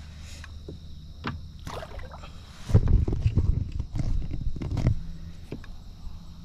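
Knocks and thumps on a plastic fishing kayak over a low rumbling handling noise while a hooked bass is being fought. The heaviest thumps come about three to five seconds in, with a few sharp clicks scattered through.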